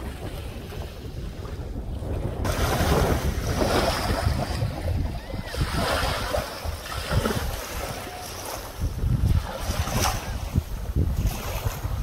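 Small waves washing up over a coarse-sand and pebble shore, each wash a hiss that swells and fades, several in a row, starting about two seconds in. Wind rumbles on the microphone underneath.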